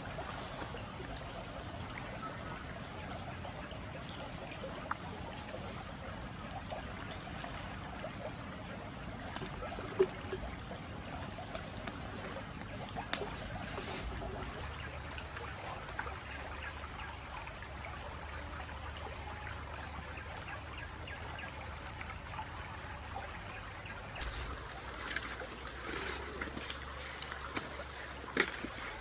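Shallow stream trickling steadily, with occasional sharp clicks and knocks over it.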